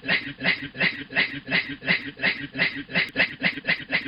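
A man's voice making rhythmic breathy 'hue hue' pulses, about three a second and very even, imitating a chugging train.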